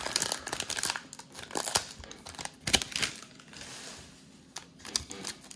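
Cellophane trading-card pack wrappers crinkling as cards and packs are handled, in irregular crackles that ease off for a moment a little past the middle.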